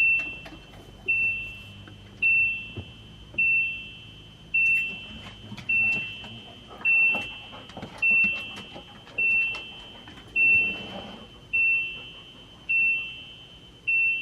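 RV dashboard warning chime beeping with the ignition on, about once a second, each beep a short tone stepping up to a slightly higher one, with a few faint clicks and no sound of the engine cranking: the start attempt fails.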